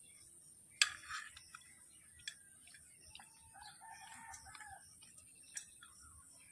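A rooster crowing faintly in the background, one drawn-out call from about three to five seconds in. A few sharp clicks come and go, the loudest about a second in.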